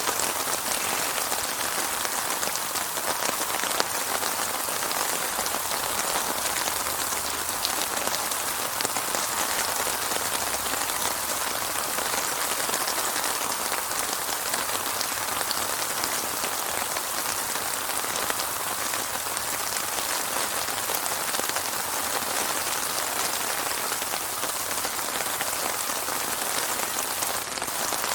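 Steady heavy rain falling, a dense even hiss of drops with fine pattering ticks and no thunder.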